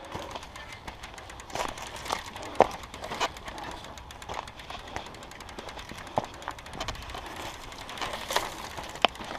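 Mountain bike rolling over a dirt and gravel trail: steady tyre noise with scattered clicks and rattles, and a few sharper knocks over bumps.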